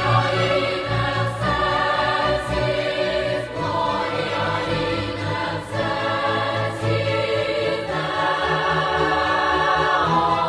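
Background music: a choir singing held chords that change every second or two.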